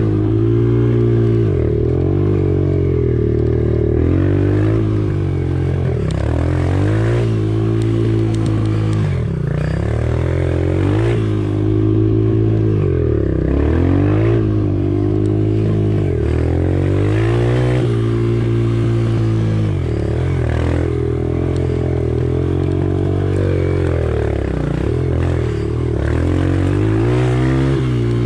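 Off-road motorcycle engine under hard riding, its revs repeatedly dropping and climbing again every second or two as the throttle is rolled off and back on.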